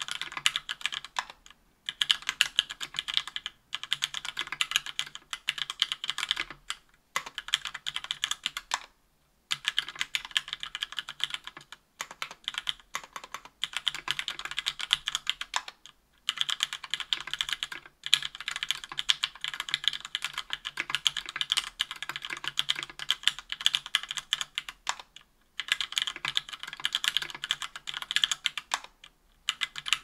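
Typing on a KBDfans Tofu 60% aluminium mechanical keyboard fitted with stock, unlubricated SP-Star Nana 65 g linear switches on an aluminium plate, with GMK keycaps: fast, continuous key clacks in runs of a few seconds broken by brief pauses.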